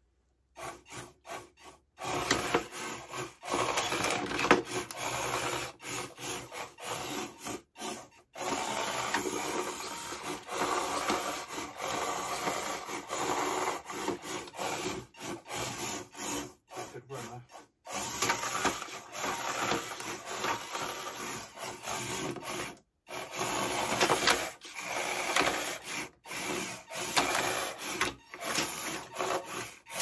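Antweight combat robots driving and fighting on a wooden arena floor: small drive motors whirring in stop-start spurts, with wheels and plastic bodies scraping and knocking on the board. The sound starts about half a second in and cuts out briefly several times.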